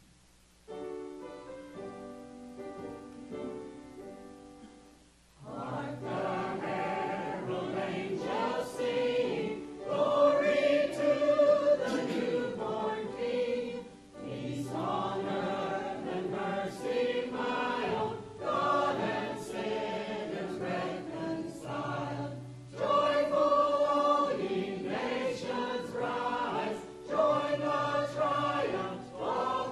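Mixed church choir singing a Christmas anthem with accompaniment. It opens with about five seconds of held instrumental chords before the voices come in.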